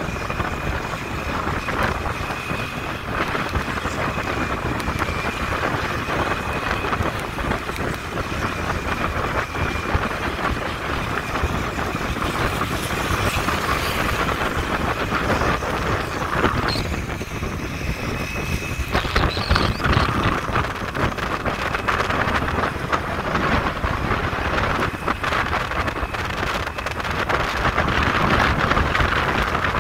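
Wind rushing over the microphone while riding a motorcycle along a road, with the bike's engine and road noise running steadily underneath.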